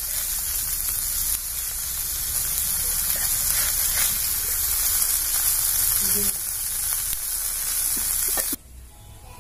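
Small fish sizzling as they fry in mustard oil on a flat tawa, with a metal spatula stirring and turning them in the pan. The sizzling cuts off suddenly near the end.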